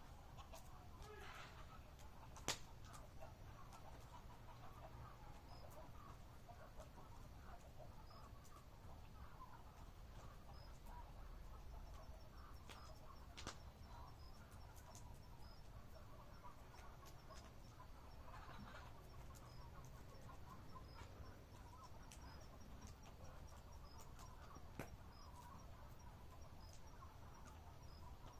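Faint campfire crackle: a low, steady hiss with a few sharp isolated pops. A cricket chirps faintly and regularly in the background, faster in the second half.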